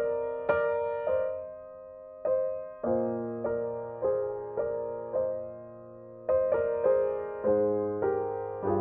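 Background music: a slow, gentle piano melody, single notes struck about twice a second and left to ring and fade.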